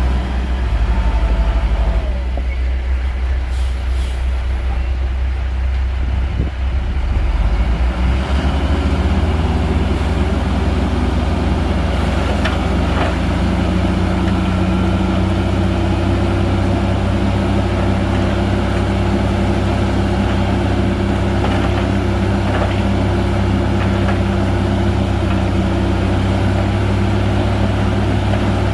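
Heavy diesel engine of a Shantui crawler bulldozer running, working harder about eight seconds in, when its note steadies and grows a little louder. There are a few light clanks.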